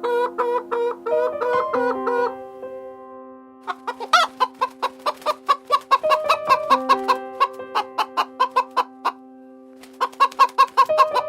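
Chicken clucking in rapid runs of short calls over steady background music, with one louder call about four seconds in and a pause around nine to ten seconds.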